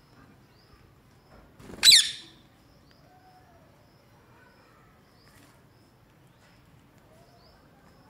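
Rose-ringed parakeet giving one short, loud, shrill screech about two seconds in, with faint high chirps in the background.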